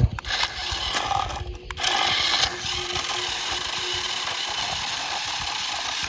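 Electric drive motor and gearbox of a remote-control model tractor whirring steadily as it drives on dirt and rears up on its rear wheels. A brief dip about a second and a half in.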